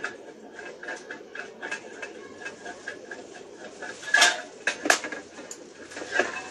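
Small metallic clicks, about three to four a second, from a screw being turned by hand into a sheet-metal box, followed by a few louder knocks of the metal box being handled and set down near the end.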